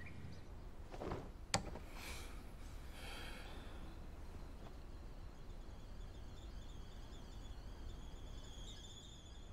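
Faint background ambience with a sharp click about a second and a half in, and a faint high, wavering tone in the second half.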